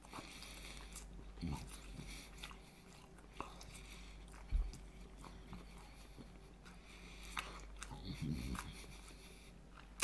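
A man chewing and biting into french fries, with scattered small mouth clicks.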